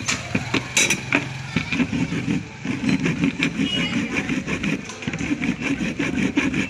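A wire brush and then a file scraping back and forth over the lead terminal post of a motorcycle battery, in quick repeated rasping strokes with a couple of short pauses.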